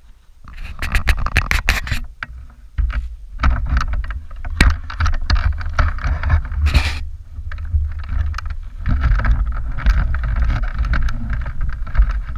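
Rustling, scraping and clicking of a rider's jacket, gloves and gear rubbing against a helmet-mounted camera's microphone as he moves about, over a steady low rumble.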